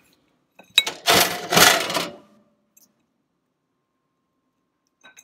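A hard tile or block set down on a wooden tabletop with a sharp clack about a second in, then about a second of scraping clatter as it is pushed and pressed down to flatten the freshly shrunk plastic.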